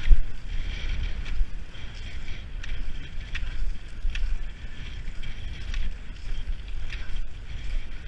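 Wind buffeting the microphone of a skier moving fast, over the hiss of cross-country skis gliding and scraping on packed snow, with short clicks about once a second from ski poles planting.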